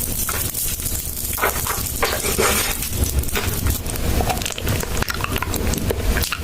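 A cat eating, chewing its food with a run of small clicks and crackles over a low rumble.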